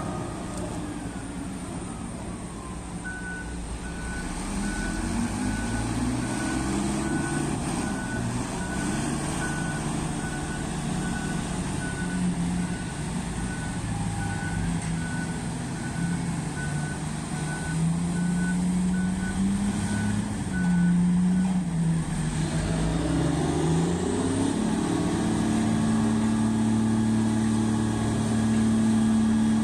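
Heavy mining dump truck reversing, its back-up alarm beeping in a steady high pitch about three times every two seconds over a diesel engine whose pitch wanders up and down. The alarm stops about 21 seconds in, and the engine then revs up and holds a steady higher pitch.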